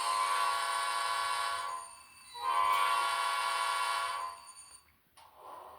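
Model diesel locomotive horn from a Tsunami2 sound decoder's small speaker: two long blasts, the second slightly louder, the directional signal for moving forward. A fainter sound with slowly rising tones follows near the end.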